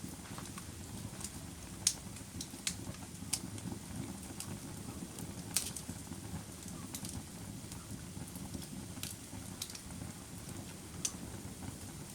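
Campfire crackling: irregular sharp pops and snaps, roughly one or two a second, over a steady low rumble of burning.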